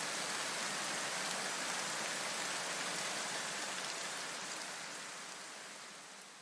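A steady, even hiss like rain, fading out over the last two seconds or so.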